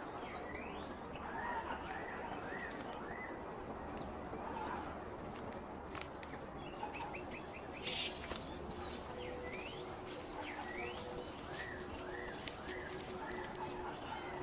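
Wild birds calling: short chirps in quick runs of three or four, with a few rising whistled notes, over a steady background hiss and a thin high-pitched tone.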